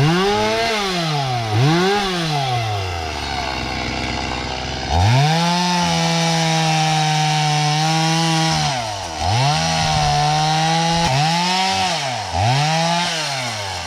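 Two-stroke chainsaw revved in quick throttle blips, dropping to idle, then held at high revs for several seconds while cutting wood, dipping once. It finishes with two more quick revs before settling back to idle.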